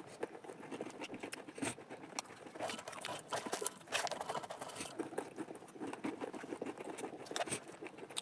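Jhaalmuri (spiced puffed rice) rustling and crackling as it is tossed by hand in a steel bowl: a dense, uneven run of light crackly clicks.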